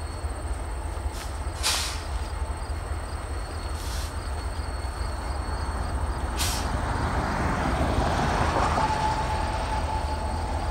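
A train rolling past with a steady low rumble, growing louder, broken by three sharp clicks. A thin steady squeal joins near the end.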